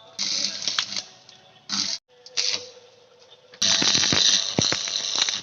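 Electric arc welding crackling and hissing in several short runs that stop and start again, the longest near the end, as a nut is welded into an engine mounting bracket.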